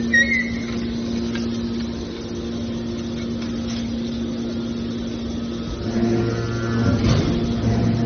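Hydraulic scrap-metal baler's power unit running with a steady hum. About six seconds in, a deeper drone joins and the sound grows louder and rougher for a moment, with a faint whine.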